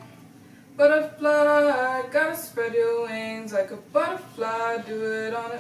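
Unaccompanied singing without recognisable words: held notes that step from one pitch to the next, in short phrases starting about a second in.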